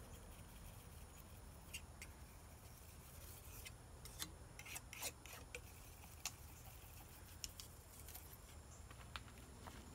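Faint, scattered clicks and short scrapes of a metal painting knife laying paint onto a canvas, over a low steady hum.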